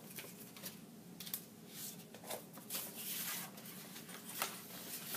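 Sheets of paper being handled on a table, with a few light taps and a longer rustle of paper near the middle.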